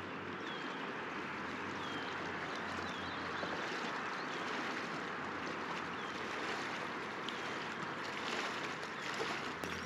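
Shallow river water running steadily over stones and through a riffle. Faint short high chirps come every second or so, and a brief sharp click sounds near the end.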